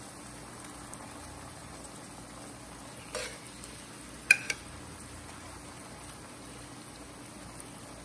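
White-wine-and-stock sauce sizzling steadily in a cast iron skillet as chicken thighs are laid in. Metal tongs clack sharply a few times, about three seconds in and again twice just after four seconds.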